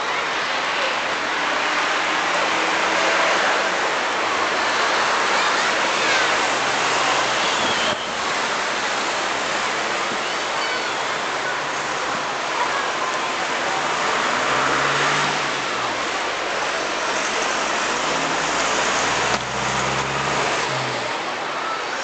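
Steady road-traffic noise from cars on a boulevard, with a low engine hum from vehicles passing about two-thirds of the way through and again near the end, under a constant hiss.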